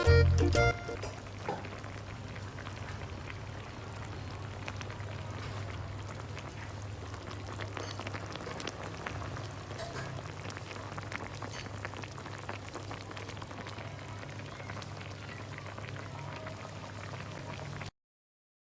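Food cooking on the stove: a steady hiss with many small crackles and pops over a low hum. The sound cuts off suddenly near the end.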